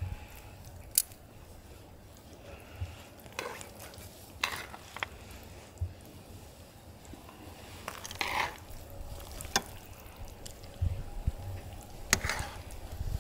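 Metal tongs and chopsticks serving sticky, sauce-coated jjajang noodles and rice cakes from a cauldron-lid pan: wet squishing with a few sharp clicks of metal on metal.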